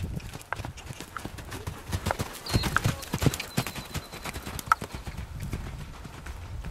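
Hoofbeats of two young Irish Sport Horses cantering loose on an arena surface: a quick, irregular run of hoof strikes.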